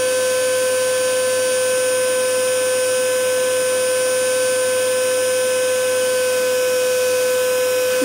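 Vacuum cleaner motor running steadily: a constant whine over an even hiss.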